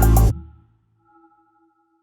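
Electronic background music with a heavy beat that cuts off abruptly about a third of a second in, leaving near silence with a faint held tone.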